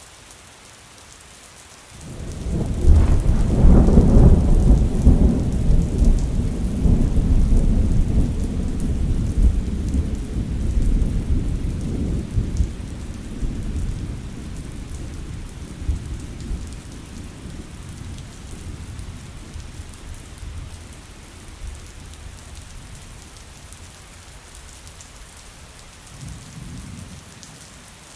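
Steady rain hissing, with a thunderclap breaking in about two seconds in. It turns into a long, low rolling rumble that slowly dies away, and a fainter second rumble comes near the end.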